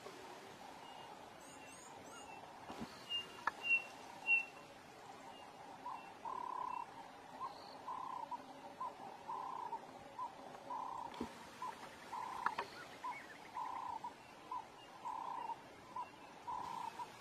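Wild animal calls. A few short, high chirps come about three to four seconds in. From about six seconds in, a steady repeating call follows: a longer note about every second and a half, with a short note between.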